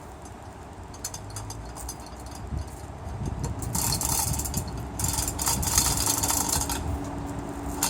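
Hand-cranked chain come-along being worked: the ratchet pawl clicks and the chain rattles as it is tightened to pull a birch tree over by its roots. The clicking gets faster and louder about halfway through, then eases near the end.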